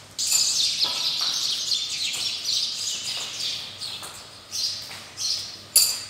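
Small birds chirping: a dense, rapid chatter of many chirps for the first few seconds, then a few separate loud chirps near the end.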